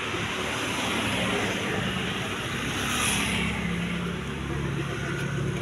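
Road traffic passing close by: a steady rumble of vehicles, with one vehicle swelling loudest about three seconds in and its engine note dropping in pitch as it goes by.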